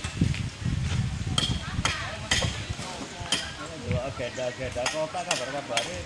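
Mason's trowel working bricks and wet mortar: a low scrape in the first two seconds, then sharp clinks and taps at irregular intervals, the steel blade knocking against brick.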